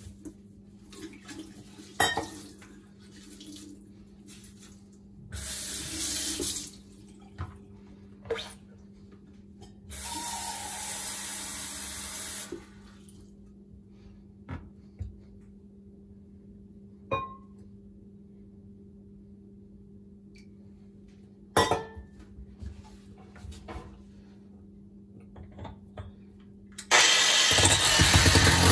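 Water running from a kitchen faucet into a small stainless steel sink in two short bursts, with sharp clinks and knocks of a metal pitcher and other items being handled. A steady low hum runs underneath. A loud, steady, dense noise starts abruptly about two seconds before the end.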